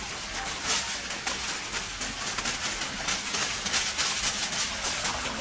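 Aluminium foil being pulled off its roll and crinkled as it is spread over food, an irregular crackling rustle.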